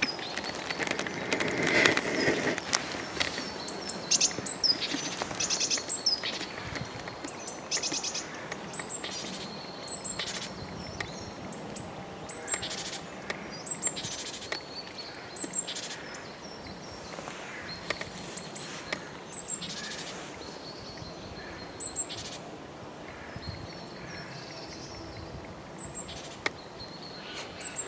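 Small songbirds chirping, short high calls that sweep down, repeated every second or two, over a hiker's footsteps on a forest path.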